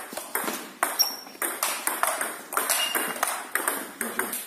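Table tennis ball in a rally, clicking sharply off the bats and the table, about three clicks a second.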